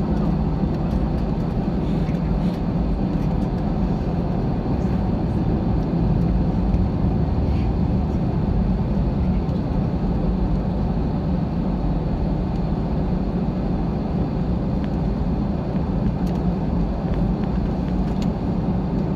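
Steady low rumble inside a jet airliner's cabin as it taxis after landing, its engines running.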